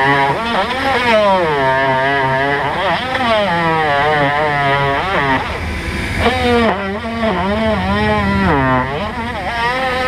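Cordless drill running steadily, its motor pitch rising and falling smoothly as the trigger and load change against the wooden window trim.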